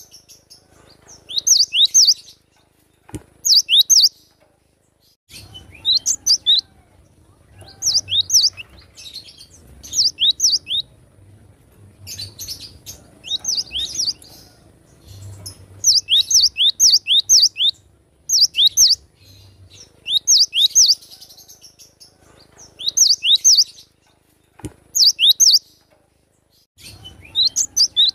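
Cinereous tit (glatik batu) singing: short bursts of three to five quick, high, down-slurred whistled notes, repeated about every two seconds.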